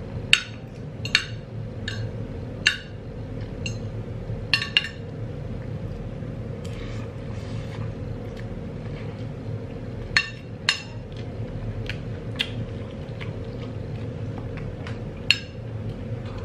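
Spoon and fork clinking against a ceramic bowl while eating: about a dozen short, sharp clinks at irregular intervals, in a cluster over the first five seconds and again from about ten seconds on. Underneath, a steady low hum.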